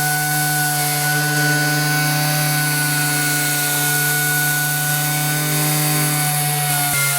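Robot-held dual-action (random orbital) sander running steadily against a workpiece: a constant motor hum and whine over an even sanding hiss, with a brief dip near the end.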